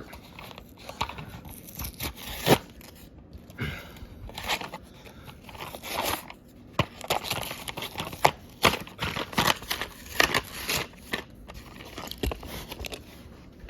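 Cardboard-and-plastic toy blister package being opened by hand: irregular tearing, crinkling, scraping and clicking.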